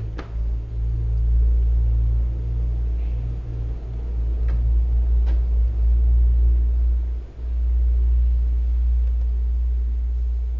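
Loud, steady low rumble that drops out briefly about seven seconds in, with a couple of faint clicks from the plastic clips as a laptop's bottom case is pried open.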